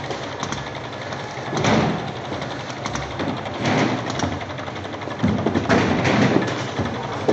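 Automatic bottle labeling machine running, its conveyor carrying glass sauce jars through the labeler, a steady mechanical clatter with louder swells every second or two.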